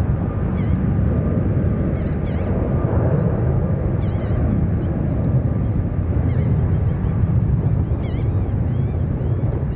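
Distant twin-engine widebody jet on its takeoff roll, engines at takeoff thrust making a steady deep rumble, with short high bird chirps over it.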